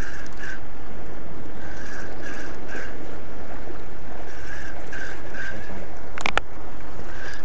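Steady wind and water noise against the boat, heard through a GoPro's microphone, with a spinning reel being cranked in short repeated whirs. A sharp double click comes about six seconds in.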